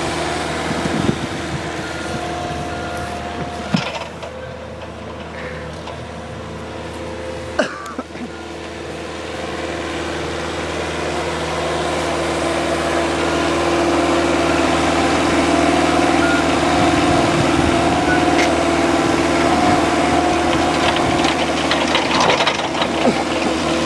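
Forklift engine running steadily, getting louder about ten seconds in and holding there, with two sharp knocks in the first eight seconds.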